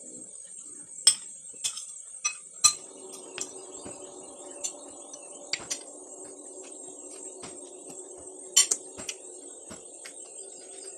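Spoon and fork clinking against a plate in a dozen or so separate, irregular strikes, the sharpest about a second in and near the end. Under them runs a steady high-pitched drone, and a low hum comes in about a quarter of the way through.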